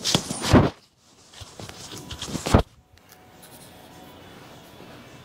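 Handling noise from two men working at a car's windshield frame: rustling and clatter with two loud knocks, about half a second and two and a half seconds in, then only a faint steady hum.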